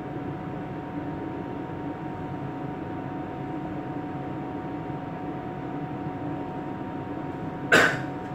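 Steady engine and machinery hum, heard from inside a vessel's wheelhouse, with two faint steady tones over it. A single sharp knock near the end.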